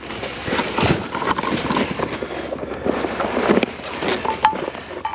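Irregular rustling, scraping and knocking of scrap being handled and carried, with a brief squeak about four seconds in.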